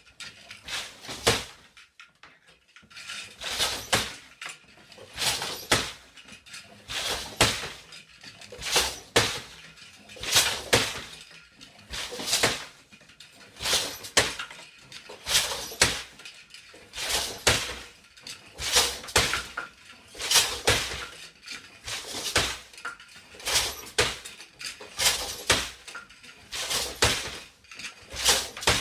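Eight-harness floor loom being woven on: a steady rhythm of wooden knocks and clacks from the beater, treadles and harnesses, one cycle about every second and a half.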